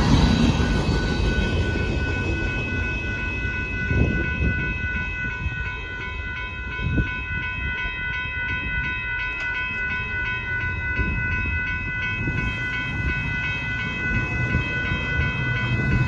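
Railroad grade-crossing warning bell ringing steadily in a regular pulse, as the last covered hopper cars of a Union Pacific grain train rumble past and their noise dies away in the first couple of seconds. A couple of dull thumps come about four and seven seconds in.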